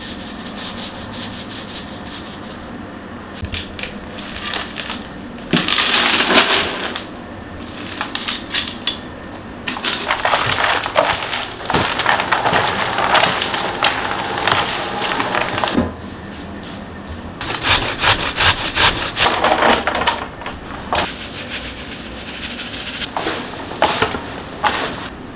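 Gloved hands mixing a chopped meat, onion and spice filling in a plastic basin, then grated vegetables: irregular rustling and scraping in bouts, with short pauses between.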